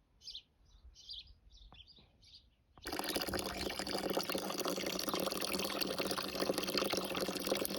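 Faint bird chirps, then from about three seconds in a steady rush of running or pouring water.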